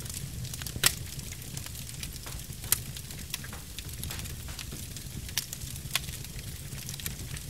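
Fire crackling over a low steady rumble, with several sharp pops; the loudest comes about a second in.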